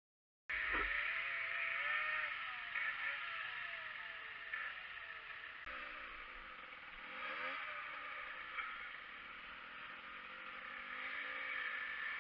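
Off-road motorcycle engine revving up and down in the distance while it climbs a steep dirt trail, the pitch rising and falling repeatedly, over a steady hiss.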